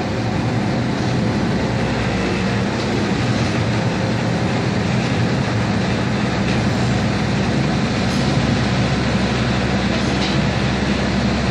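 Kanto Railway Joso Line KiHa 0 series diesel railcar running, heard from inside the passenger cabin: a steady low drone of the underfloor diesel engine mixed with the noise of the wheels on the rails.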